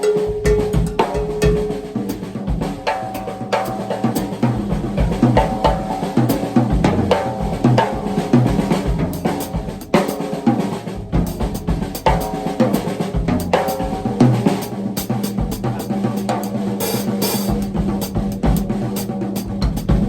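Drum kit played in a continuous groove: a melody carried on the snare drum, filled in between by the left hand, with bass drum and cymbal.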